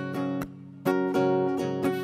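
Acoustic guitar strumming chords between sung lines, with a brief break about half a second in before the strumming picks up again.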